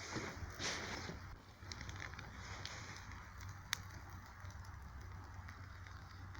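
Bonfire crackling, with scattered small pops and one sharp pop a little past halfway.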